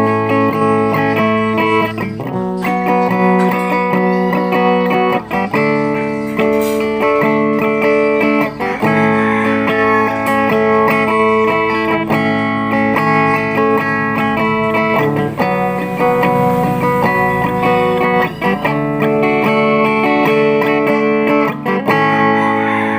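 Guitar strummed through a Deviser TG-30 guitar amplifier on its clean setting with the crunch off, letting each chord ring. A new chord comes in about every three seconds.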